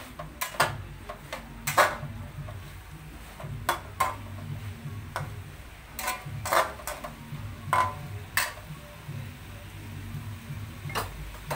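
Metal utensils clinking against dishes, about a dozen sharp, separate clinks at irregular intervals, each with a short ring, over a steady low hum.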